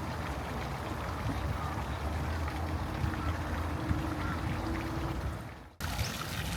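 A steady low hum under a wash of noise, cut off by an edit near the end, after which similar ambient noise with a few clicks carries on.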